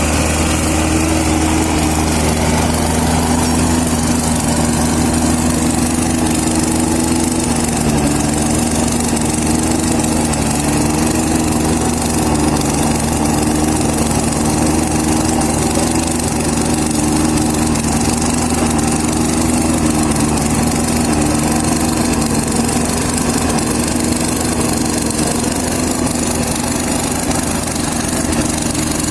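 Engine running steadily at a constant speed, its pitch wavering slightly.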